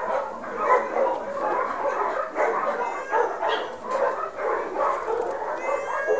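Several dogs barking and yipping over one another in a continuous chorus, with a high whine near the end.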